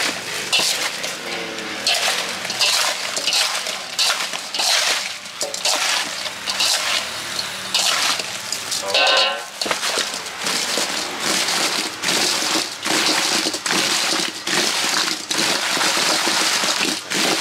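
Small round fruits being stirred and tossed with seasoning in a stainless-steel bowl with a metal ladle: quick, irregular scraping and rattling of fruit and spoon against the bowl. A brief pitched sound cuts in about halfway through.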